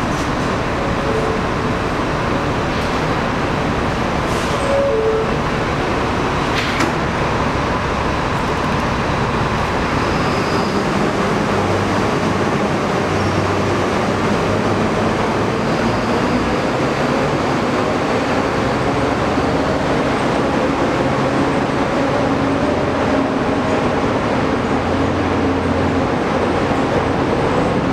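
Slow-moving subway work train passing in an underground station: a yellow diesel work locomotive towing retired R110A subway cars, with a steady rumble of wheels on rail. A low engine hum comes in from about eleven seconds, as the locomotive draws level.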